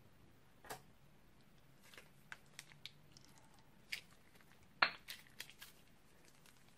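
Faint, sticky pops and clicks of white slime being squeezed out of a plastic piping bag onto wet slime, scattered irregularly, with the loudest pop a little under five seconds in.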